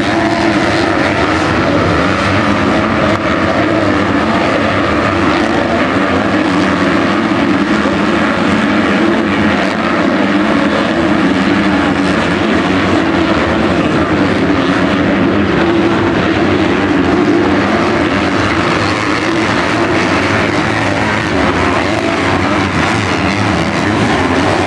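Several motocross dirt bike engines running hard together, a continuous loud buzz whose pitch wavers up and down as the riders work the throttles.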